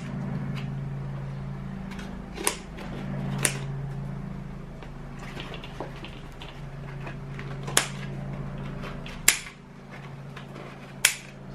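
Five sharp clicks and knocks, irregularly spaced, from handling the roach colony's egg trays and plastic bins, over a steady low hum.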